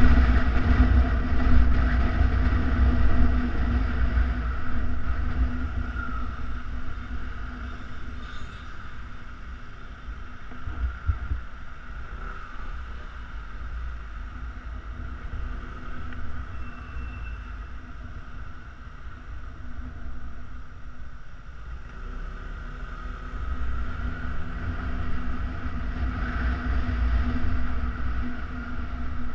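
Yamaha Xenter 150 scooter's single-cylinder engine heard from the rider's helmet, with wind rush on the microphone while moving. The sound drops to a quieter idle in traffic in the middle, then grows louder again as the scooter pulls away near the end.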